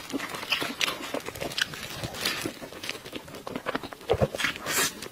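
Close-miked wet chewing and lip-smacking as a soft purple taro cream cake is bitten and eaten, with a run of irregular small mouth clicks and a longer wet smack near the end.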